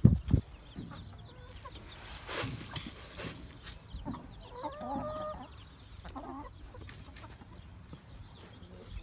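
Backyard hens clucking, with one drawn-out call about five seconds in and a shorter one just after. A couple of thumps at the very start and a rustle a few seconds in.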